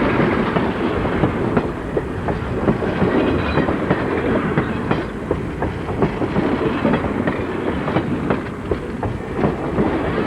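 N scale model passenger train running along the layout's track: a steady rattle with many quick clicks of the small wheels over the rails.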